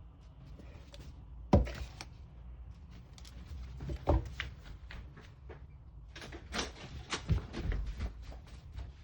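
A series of knocks and bangs: a sharp loud one about a second and a half in, another about four seconds in, then a quick run of lighter knocks and clicks near the end.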